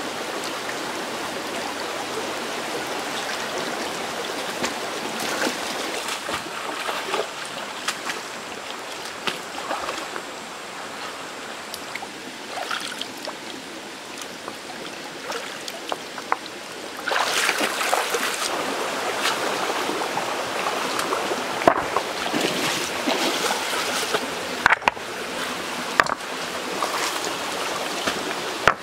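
A shallow stream running steadily, with splashing and dripping as flat stones are lifted out of the water, and a few sharp knocks of stones set down on one another. The water gets louder a little over halfway through.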